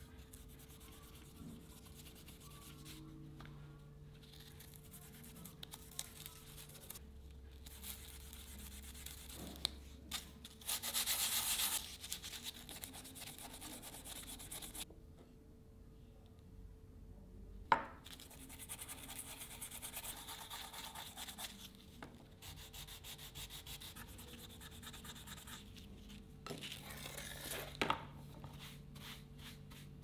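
A small stiff-bristled brush scrubs a wooden pocket-knife handle in spells of brisk strokes, with short pauses between them. There is a single sharp knock about halfway through.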